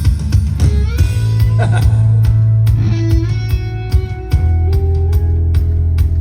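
Rock band playing live on electric guitar, bass and drums in an instrumental passage, with steady drum hits under sustained bass and guitar notes. The sound drops briefly about four seconds in, then the bass comes back in.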